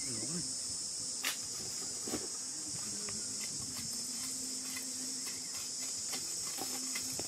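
Steady high-pitched buzzing of an insect chorus, with a few faint knocks and scrapes as a knife blade works dry soil, the sharpest about a second in.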